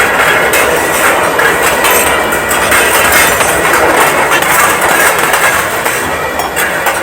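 Loud, dense rattling noise, thick with small clicks and clatters, from an experimental sound-art piece.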